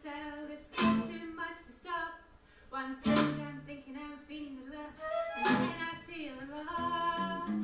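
Acoustic swing band playing live, with strummed guitar and violin.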